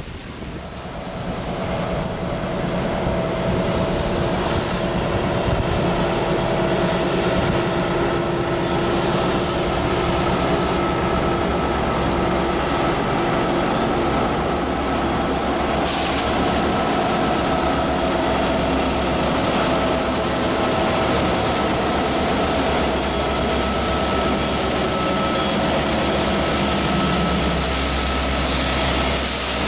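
Freight train's diesel locomotives, a Union Pacific unit leading Norfolk Southern units, approaching and running past. The sound builds over the first few seconds, then holds as a steady rumble with faint steady whining tones over it.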